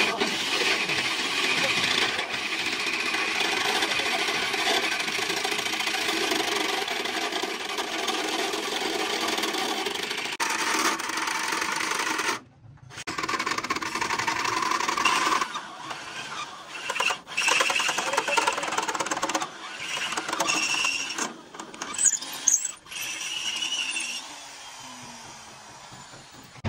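Metalworking workshop noise: a machine runs steadily for about twelve seconds, then after a brief break come irregular metallic clinks and short bursts of tool sound.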